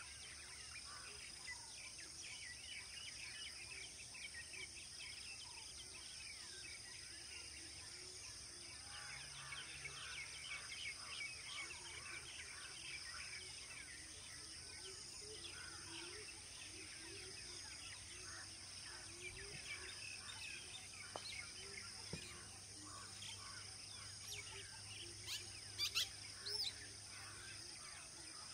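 Natural outdoor ambience: a steady high insect drone under many small birds chirping and twittering, with a few sharper, louder bird calls near the end.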